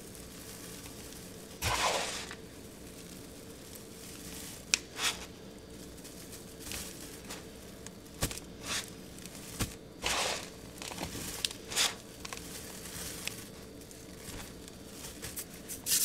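Hands scooping, squeezing and crumbling a dry, powdery pink mass mixed with confetti bits: soft crunchy crackles and rustles in separate bursts every second or two, with a louder, denser burst of crunching near the end. A faint steady hum lies underneath.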